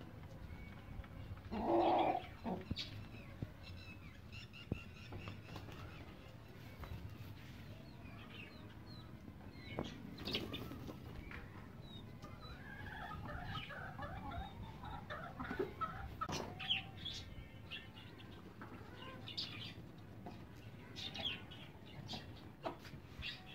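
Desi hens clucking and chicks cheeping, in scattered short calls, with one brief loud burst about two seconds in.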